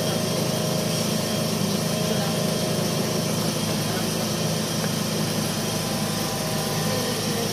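Foton dump truck's diesel engine idling steadily.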